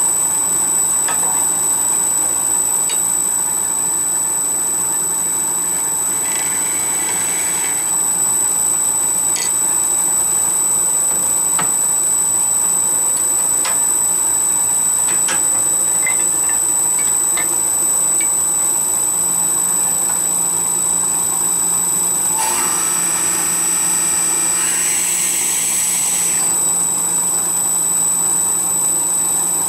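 Wood lathe running with a steady high whine as a small wooden spinning-top body turns in its chuck. Past the middle, a drill bit bores into the centre of the spinning wood for about four seconds with a harsh scraping rush, after a shorter bout of cutting noise earlier.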